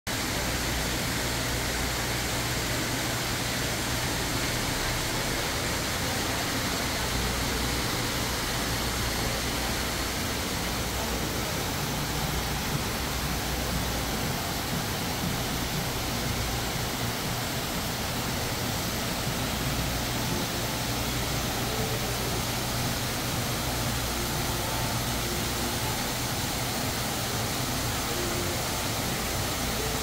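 Steady rushing of indoor artificial waterfalls pouring into a large aquarium pool, with a low hum underneath.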